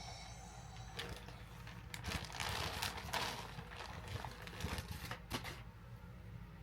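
Rustling and crinkling of packaging and fabric being handled, with scattered small clicks and a louder stretch of crinkling a couple of seconds in, as a garment is unwrapped.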